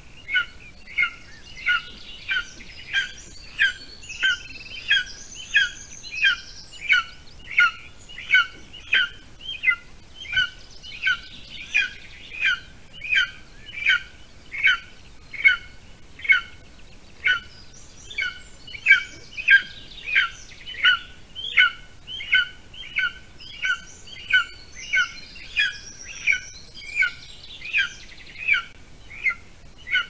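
Golden eagle chick giving short, high begging calls over and over, about two a second, as it waits to be fed. Fainter, higher songbird chirps come and go behind them.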